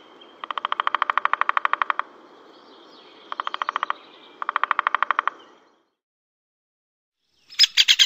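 Great spotted woodpecker drumming: three rolls of very rapid, evenly spaced strikes, about nineteen a second, the first about a second and a half long and the next two shorter. Near the end a short, louder burst of rapid high notes begins.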